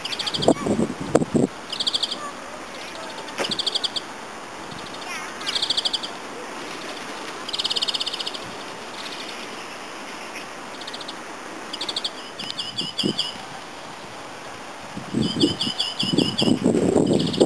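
European greenfinch singing: short, high trills repeated every second or two, coming faster after about twelve seconds in. A louder rustling noise joins near the end.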